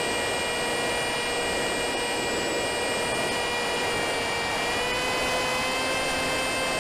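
Electric motor and pusher propeller of a Wing Wing Z-84 flying wing in flight, heard from its onboard camera: a steady high whine over wind rush, its pitch rising slightly about five seconds in.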